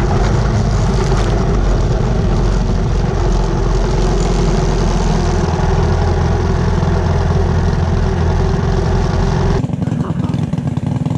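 The two single-cylinder 212cc Tillotson engines of a homemade dual-engine go-kart running under throttle, heard from on board as it drives a dirt trail. A little over nine seconds in, the sound cuts abruptly to a different, steadier engine sound.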